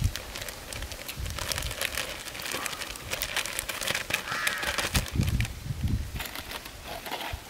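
Plastic bag crinkling and crackling as flour is shaken out of it into a large aluminium bowl, with a few low handling thumps. Crows caw in the middle.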